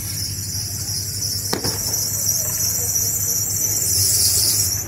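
Loud, steady high-pitched insect trilling, typical of crickets or katydids on a summer night. It cuts off near the end. One distant firework bang comes about a second and a half in.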